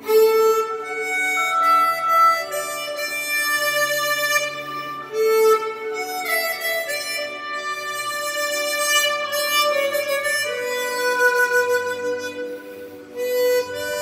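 Swan SW1248 chromatic harmonica, airtightened by sanding the comb and mouthpiece flat, playing a slow melody of long held notes. It plays along with a recorded accompaniment that sits softly underneath.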